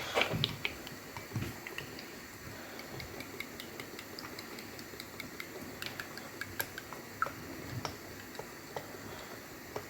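Quiet kitchen handling: a knock at the start, then scattered light clicks and taps of a glass against a mixing bowl as glasses of cooking oil are poured in.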